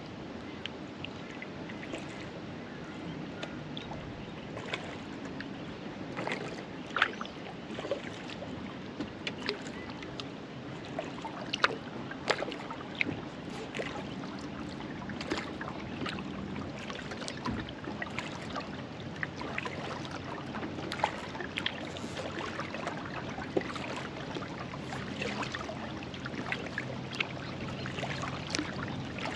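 Small splashes and drips of water around a kayak, many irregular drops over a steady low wash of water.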